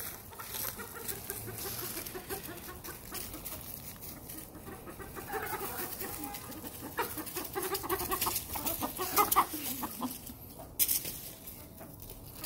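A flock of chickens clucking in short, repeated calls, busiest in the middle, with a sharp knock near the end.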